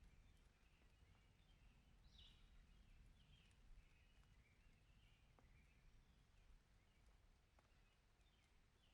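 Near silence: faint bird chirps over a weak low rumble that slowly dies away.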